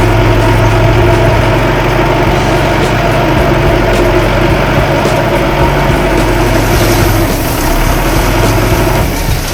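Large diesel engine of a construction vehicle running steadily at low revs; its note changes about seven seconds in and eases slightly near the end.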